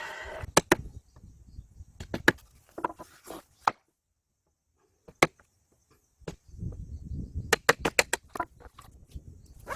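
Irregular sharp knocks and taps on wood, several in quick clusters, with low handling rumble between them.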